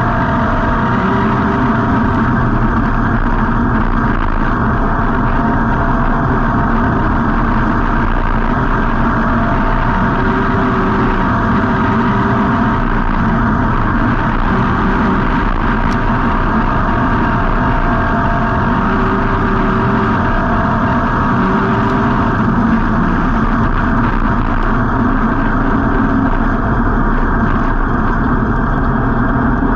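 Street stock race car engine running steadily, heard from on board the car, its pitch holding level without revving up and down.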